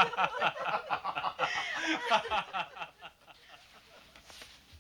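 People laughing: a short run of chuckles and snickers that dies away about three seconds in.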